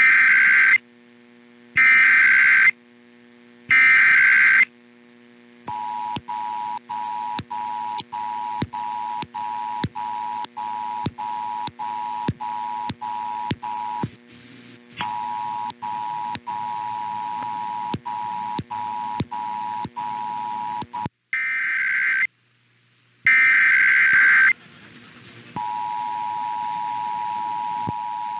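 Emergency Alert System tones. Three short buzzy SAME data bursts about a second apart are followed by the two-tone attention signal, which sounds steadily for about fifteen seconds with regular clicks and one short break. Near the end come two more data bursts, the end-of-message code, and then a second attention signal begins.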